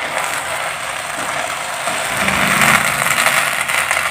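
Pulao rice sizzling and steaming in a nonstick pan on a gas burner as a wooden spatula stirs it, a steady hiss. The rice is being stirred to check whether it is cooked through.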